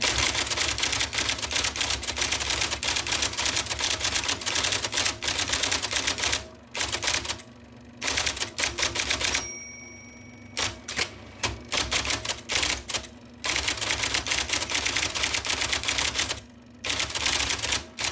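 1979 IBM Selectric II electric typewriter typing at speed, its type ball striking the paper in a rapid run of sharp clacks. The typing comes in several bursts broken by short pauses.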